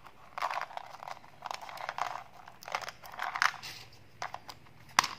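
Small hard candy tablets clattering out of a plastic candy bottle into a palm, with the plastic bottle rattling and clicking as it is handled, in several short bursts. A single sharp click near the end is the loudest sound.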